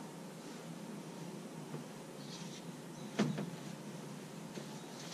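A Kevlar canoe hull being handled and tipped onto its side: one sharp knock about three seconds in, over faint rustling.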